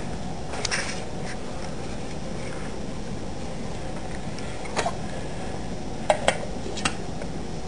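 Metal camping cook pot and its lid clinking: a light clink about five seconds in, then three sharp taps about six seconds in as the lid is set on the pot. Under it, a steady low background noise.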